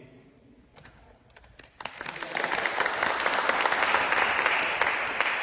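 Audience applauding. A few scattered claps come first, then the clapping builds quickly about two seconds in and begins to fade near the end.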